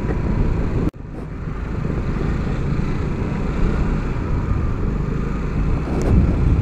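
Scooter riding through town traffic: a steady rush of engine and road noise, cut off abruptly for an instant about a second in before it resumes.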